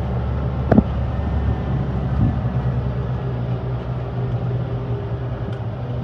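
Tractor and combine harvester engines running steadily while the combine empties its grain tank into the trailer, with a sharp knock just under a second in.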